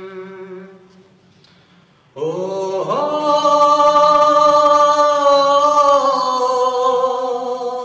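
A man singing without accompaniment. After a brief, quieter phrase, he holds one long note from about two seconds in, sliding up into it and then keeping it steady until it fades near the end.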